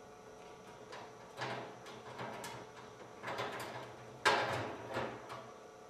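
Double-sided disc tumbler pick being worked in and out of a Craftsman disc tumbler lock under a tension tool: a series of short metallic scraping rasps, about five, the loudest a little past four seconds in.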